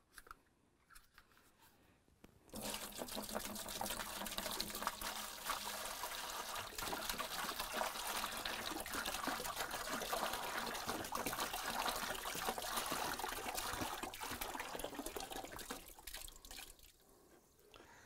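White vinegar poured from a plastic gallon jug into a plastic bucket: a steady splashing pour that starts about two and a half seconds in and tapers off near the end.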